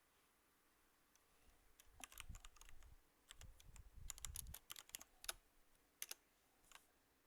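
Quiet typing on a computer keyboard: a quick run of keystrokes starting about two seconds in and lasting about three seconds, then two more single keystrokes near the end.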